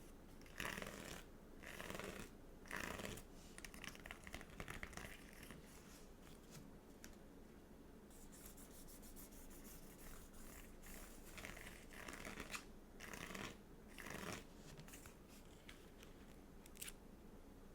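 Stickers and their sticker book being handled close to the microphone: faint, irregular peeling, crinkling and rustling in short clusters, with quieter gaps between.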